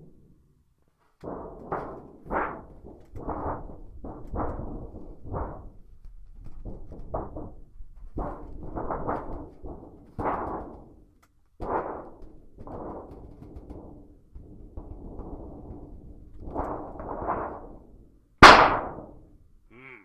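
A thin sheet of metal shaken and flexed by hand as a thunder sheet, giving a run of irregular swelling rumbles. About 18 seconds in, a much louder sharp crack of the sheet overloads the microphone.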